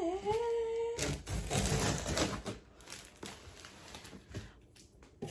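A held hummed or sung note that stops about a second in, then cardboard packages being handled and opened with a knife: scattered clicks, knocks and rustling.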